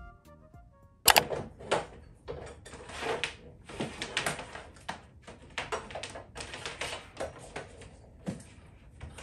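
Power cables being handled and dragged across a desktop, their plugs knocking and tapping on the surface in an irregular clatter, starting with a sharp knock about a second in.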